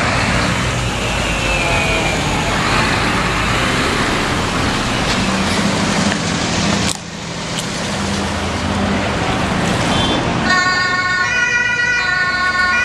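Police emergency-vehicle sirens over loud, steady street and engine noise. A siren glides in pitch at first, then from about ten seconds in a German two-tone emergency horn sounds, switching back and forth between its two notes.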